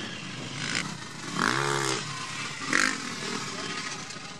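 Motocross bike engines running at the start line. About one and a half seconds in, one engine is blipped, its pitch rising and then falling, and there are shorter bursts near the start and near three seconds.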